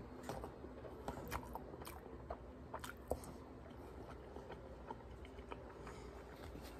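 A person chewing a mouthful of hibachi food with the mouth close to the microphone: faint, irregular soft clicks and smacks, more frequent in the first few seconds and sparser after.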